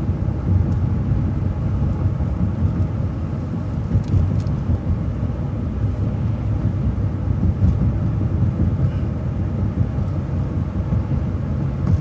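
Steady low rumble of a moving vehicle: engine and road noise while driving at a constant pace.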